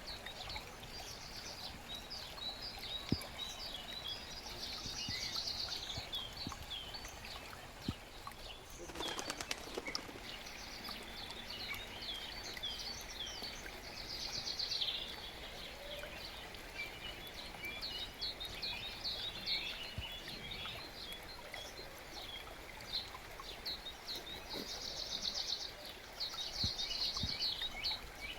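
Forest brook running steadily under many songbirds: a constant scatter of short high chirps with several fast trills. A brief rushing noise about nine seconds in.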